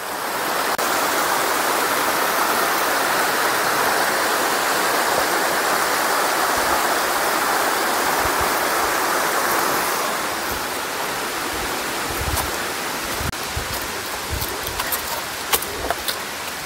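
Small stream of water running over rocks, a steady sound that eases a little about ten seconds in, with a few light knocks near the end.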